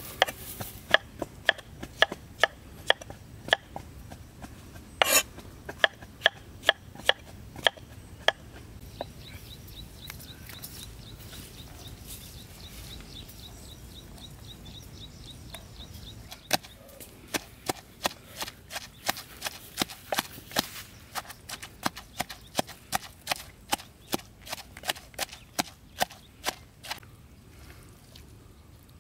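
A knife chopping on a wooden cutting board: steady strokes about two a second, a pause of several seconds with a faint, rapid high-pitched chirping, then the chopping again at a quicker pace of about three strokes a second before it stops near the end.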